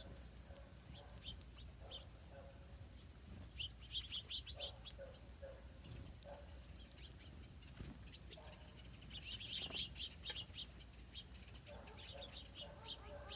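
Small birds chirping in two quick bursts of short, high notes, about three and a half seconds in and again about nine seconds in, over a faint steady background.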